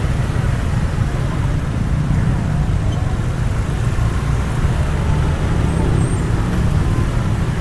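Jammed road traffic: many vehicle engines running at a crawl, a steady low rumble with no single standout event.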